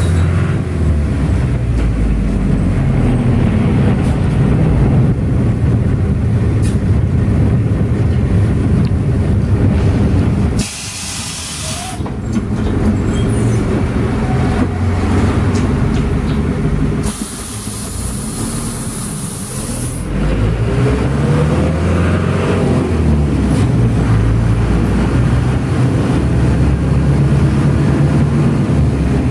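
Minibus engine and road noise droning inside the cabin while driving, the engine pitch stepping and rising as it pulls through the gears. Two short hisses of air break in, one about eleven seconds in and a longer one a few seconds later, while the engine drops back.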